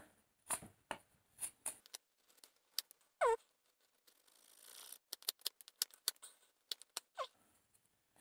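Whittling knife cutting into a wooden blank: a quick run of short, sharp shaving cuts and scrapes, played sped up. Two brief squeaks that fall in pitch come in among the cuts.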